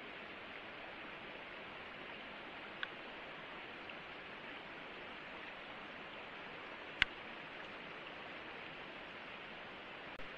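Steady hiss with a few sharp clicks, the loudest about seven seconds in.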